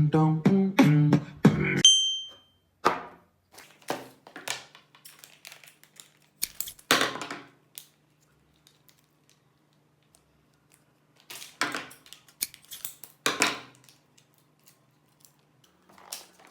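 Music with a vocal beat that stops about two seconds in with a short high beep. Then a few short, scattered squelching spurts and clicks from a squeezed mayonnaise bottle spluttering, the longest near the middle and toward the end, over a faint steady hum.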